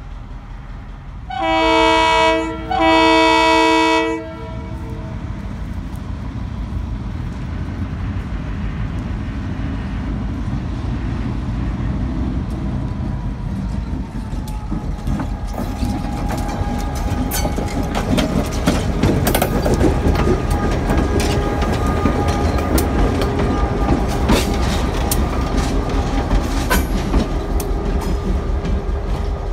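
Diesel locomotive's multi-chime air horn sounds two blasts, the second longer. The locomotive then rolls slowly past with a rising engine rumble, and its wheels click and creak on the rails, growing louder over the second half.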